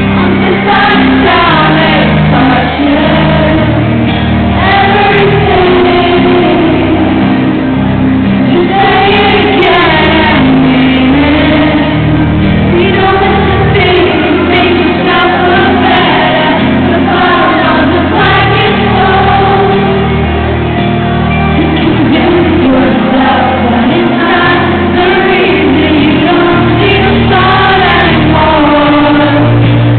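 Live rock band in concert, heard from the audience in a large hall: a woman sings lead over keyboard, guitars and drums, loud and steady.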